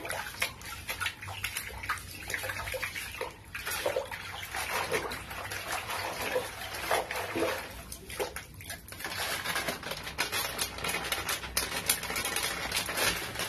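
A hand stirring and swishing wet Indian almond (ketapang) leaves in a plastic bucket of water, with uneven splashing and sloshing, as salt is mixed in to make a brine soak.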